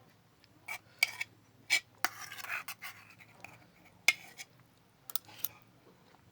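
Close-up eating sounds: about eight sharp clicks and smacks, with a short rustling scrape about two seconds in.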